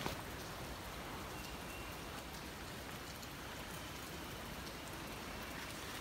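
Faint, steady hiss of falling or running water, with a few scattered faint ticks.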